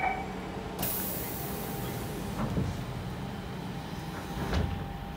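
Siemens C651 train's pneumatic sliding saloon doors closing: a hiss of air starts about a second in, a knock comes midway, and the doors thump shut near the end as the hiss cuts off. A steady low hum runs underneath.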